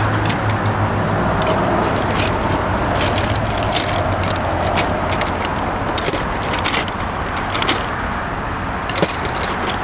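Metal hand tools, socket wrench extensions, clinking and rattling as they are sorted through, over a steady rumble of passing road traffic.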